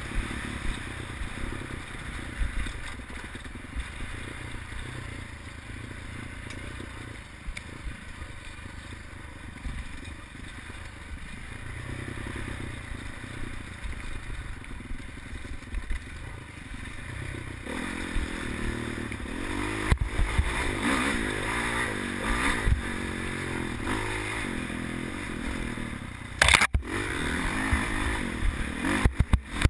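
Dirt bike engine running and revving as the bike is ridden hard over a rough, rocky trail, with rattling and scraping from the bike. The revving gets busier and louder in the last third, with a sharp knock near the end.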